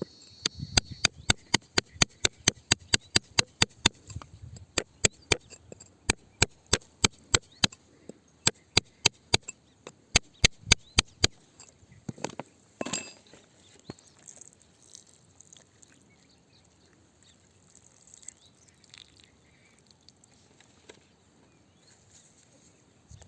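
A hammer striking rock in a fast run of sharp blows, about three a second with short pauses, for roughly eleven seconds, then one heavier knock and quieter scraping.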